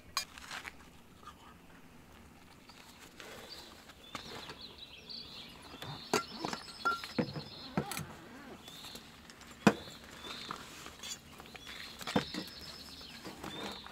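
Small birds chirping, with two quick trills, over quiet open-air background, broken by several sharp clicks or knocks; the loudest knock comes a little before the last third.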